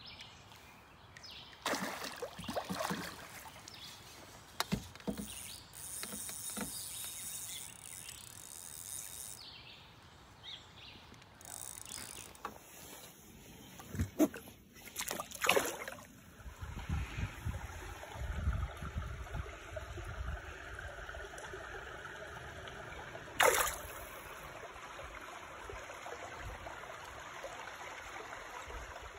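Water sloshing and splashing, broken by several brief sharp knocks and rustles.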